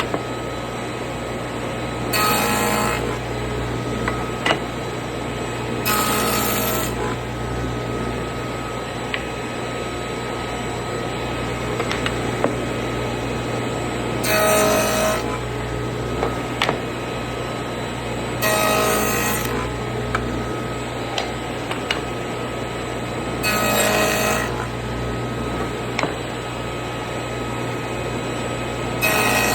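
Table saw with a dado stack running steadily, cutting tenons on cabinet door rails: six short bursts of cutting noise, each under a second, come every four to five seconds as rail after rail is passed over the blades. Small knocks sound between the cuts.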